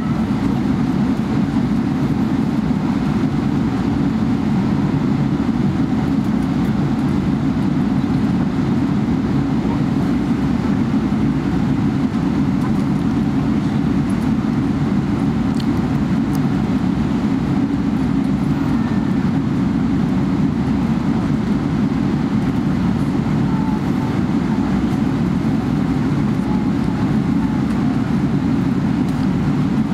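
Steady low rumble inside the cabin of a Boeing 777-300ER on the ground before takeoff, with its engines and air-conditioning running.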